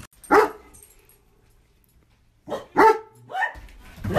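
Large black-and-tan dog barking at a closed front door: one bark, a pause of about two seconds, then three more barks in quick succession.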